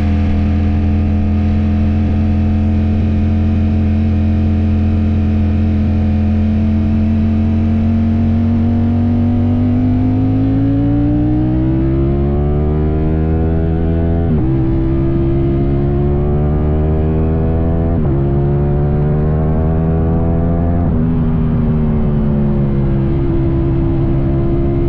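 Ducati Streetfighter V4S's V4 engine breathing through an Arrow aftermarket exhaust, heard from the bike itself: it holds steady revs at first, then accelerates with the revs climbing. Two quick upshifts each drop the pitch, a little past halfway and again about four seconds later, and near the end the rider eases off and the revs fall.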